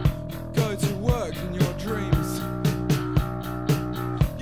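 Post-punk/no wave rock recording: a steady drum beat about twice a second under a droning, sustained electric guitar chord, with a wavering, sliding melody line over the first couple of seconds.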